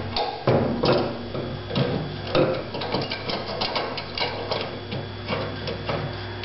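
Irregular clicks and light knocks of parts being handled during filter maintenance on a Blademaster skate sharpening machine, several a second and uneven, over a steady low hum.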